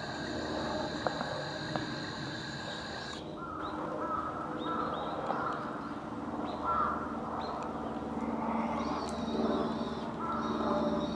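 Crows cawing repeatedly, many short calls one after another. For the first three seconds a steady ringing tone sounds over them and cuts off abruptly; a low steady hum comes in during the second half.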